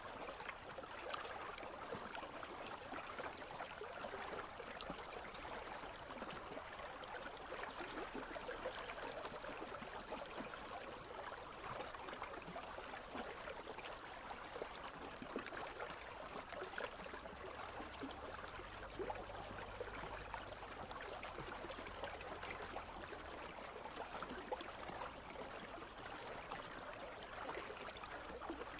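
Country stream running steadily over stones, an even babbling and trickling of water.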